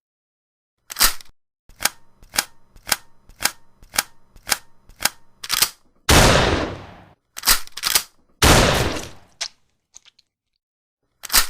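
Rifle gunshot sound effects in succession: a single shot, then a rapid run of about nine shots at two to three a second, then several heavier shots each trailing off in a long echoing tail, and two quick shots near the end.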